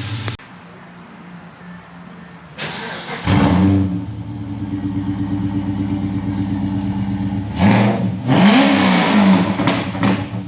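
Holden Commodore VZ SS's LS1 V8 idling, with a short rev about three seconds in and a bigger rev that climbs and falls back near eight seconds.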